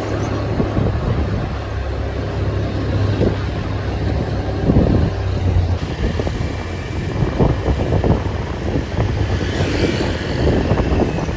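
Wind buffeting the microphone over a steady low vehicle rumble, as when filming while riding.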